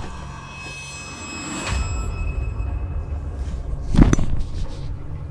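A low steady rumble with a brief whoosh about two seconds in and a heavy thump about four seconds in.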